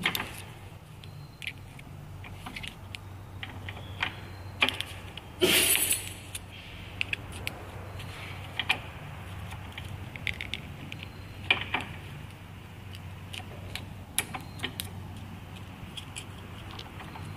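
Small steel pick clicking and scraping against the top of a Ford 6.0L diesel fuel injector as the old top injector seal is pried out: scattered light metal ticks, with one louder scrape about five and a half seconds in, over a steady low hum.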